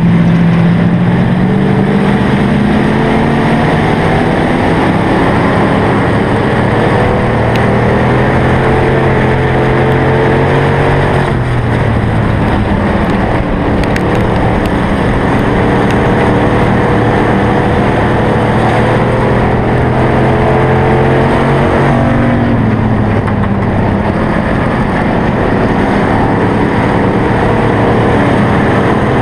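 Hobby stock race car engine at full throttle on a dirt oval, heard from the car's onboard camera over a steady rushing noise. Its pitch climbs slowly, then drops sharply about eleven seconds in and again about twenty-two seconds in.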